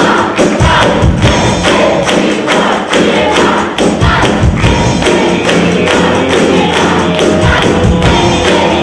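Live band playing an upbeat song, with a fast, steady beat of about four hits a second.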